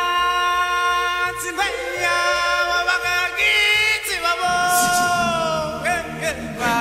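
Music with singing: a voice holds long notes that change pitch every second or two, with more bass coming in about halfway through.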